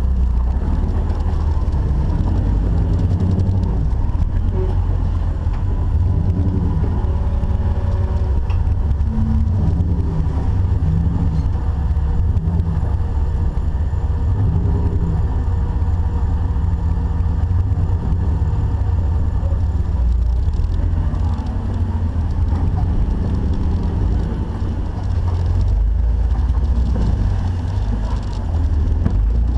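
Off-road Jeep's engine running as the vehicle drives, a steady heavy low rumble with small rises and falls in engine pitch.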